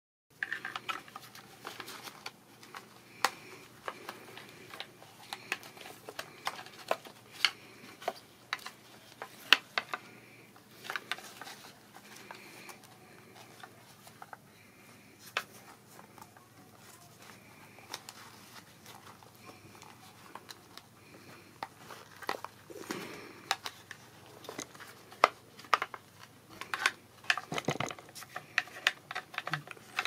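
Scattered light clicks, taps and rustles of a plastic liftgate trim panel being handled and fitted back into place, with several sharper knocks near the end.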